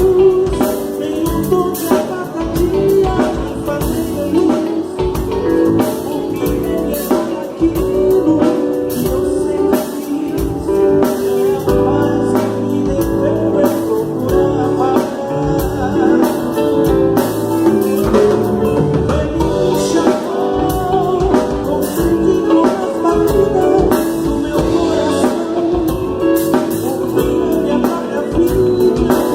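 Church worship band playing a song live with singing, drum kit and guitar, a soundcheck run-through.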